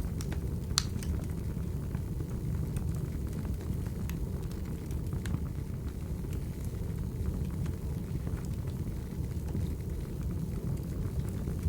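Wood fire burning: a steady low rumble of flames with scattered crackles and pops of burning logs, one sharper pop about a second in.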